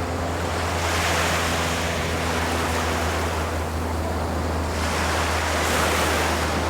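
Ocean surf on a beach: waves breaking and washing in, the hiss swelling twice, about a second in and again near the end, over a steady low rumble.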